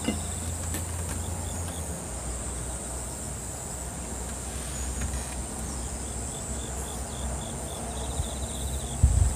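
Insects chirping outdoors: a steady high-pitched buzz, with a run of evenly spaced chirps, about four a second, in the middle, over a low rumble. A single sharp knock near the end.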